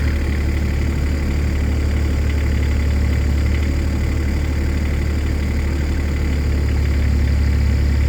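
Kubota diesel engine of a New Holland E17C mini excavator running steadily with an even low hum.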